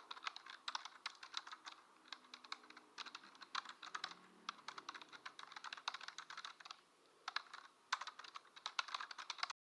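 Typing on a computer keyboard: quick runs of key clicks broken by short pauses, stopping abruptly just before the end.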